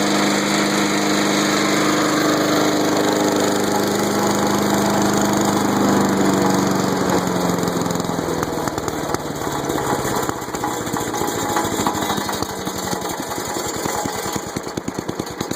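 MTD woodchipper's small engine running steadily, then slowing after about six seconds to a very low, uneven idle where each firing stroke is heard as a separate pulse. It drops this low, barely running, because the chipper's impeller is still spinning and keeps turning the crankshaft.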